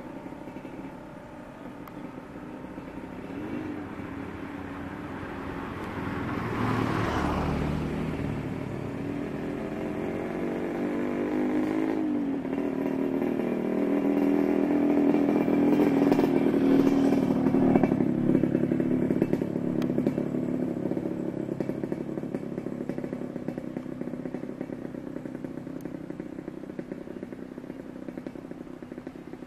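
Turboprop engine and propeller of a KAI KT-1 Woongbi trainer running as it taxis past, a steady drone that grows louder to its loudest a little past the middle, then fades away again.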